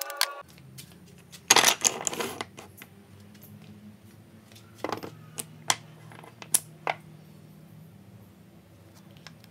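Short pieces of wooden stick clattering and knocking against a wooden workbench as they are handled and set down. A quick burst of clatter comes about two seconds in, then a few single taps a little past the middle.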